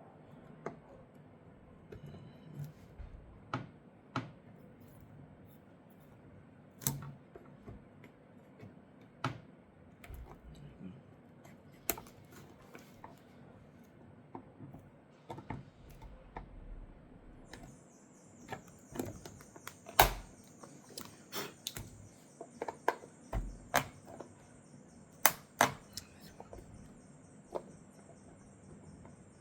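Scattered sharp clicks, taps and knocks of hard plastic taillight parts being handled and worked, the loudest about two-thirds of the way through. A steady high-pitched whine starts about two-thirds in and keeps going.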